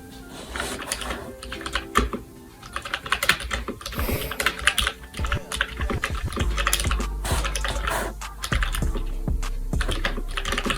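Typing test on a custom mechanical keyboard with lubed NovelKeys Cream linear switches, a brass plate and muted ABS keycaps: a fast, irregular run of key clacks, with background music entering underneath about halfway through.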